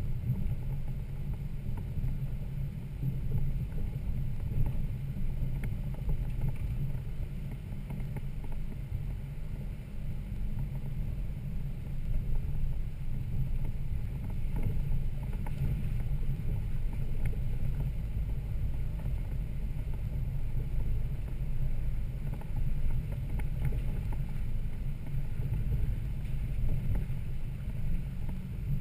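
Toyota Land Cruiser 80 Series inline-six engine running at a steady low drone while the truck drives the trail, with occasional faint knocks and rattles.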